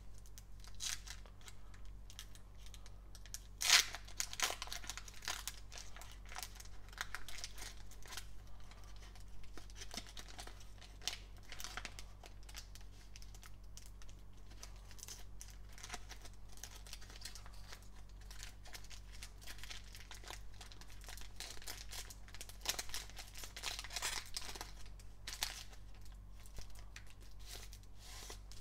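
Foil wrapper of a Panini Court Kings trading-card pack being torn open and crinkled by hand, crackling in irregular bursts, with the sharpest crackle about four seconds in.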